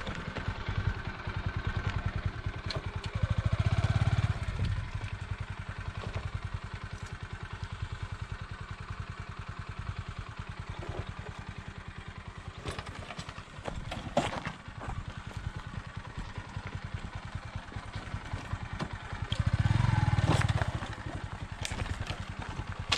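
Motorcycle engine running at low speed on a rough rocky trail, its exhaust pulsing evenly. It swells twice with a burst of throttle, about four seconds in and again near the end. There is one sharp knock a little past the middle.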